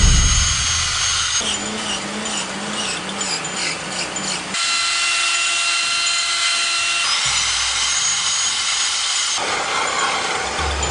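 Power carving tools running at a steady high speed on wood, heard in several short stretches that change abruptly from one to the next.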